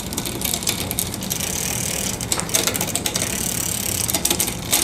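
Drivetrain of a 1987 Mongoose ATB turned by hand on the stand and shifted through its indexed gears: the chain runs over the cogs with a steady ticking, and the derailleur clicks it from gear to gear. This is a check of the shift indexing after the cables were stretched and adjusted, and the shifts land well.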